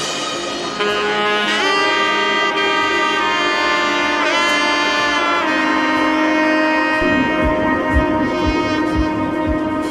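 Background music led by a saxophone-like horn holding and bending notes, with a low beat coming in about seven seconds in.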